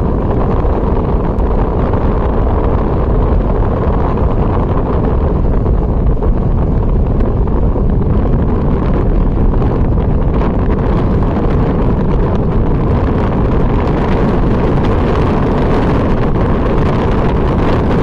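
Wind blowing hard across the microphone: a loud, steady rumble with no breaks.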